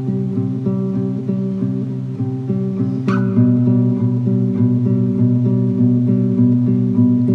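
Acoustic guitar playing an instrumental passage of picked notes, about three a second in a steady repeating pattern. A brief bright flourish comes about three seconds in.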